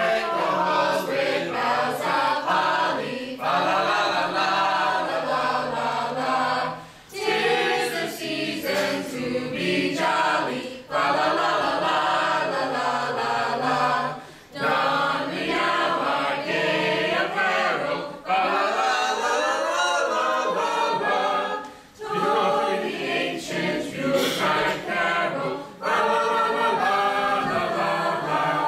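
A small mixed group of women's, girls' and men's voices singing together unaccompanied, in phrases broken by short pauses every few seconds.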